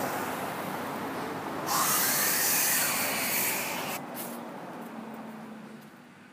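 Rumbling, hissing background noise with a louder hiss from about two seconds in until four seconds, then fading away.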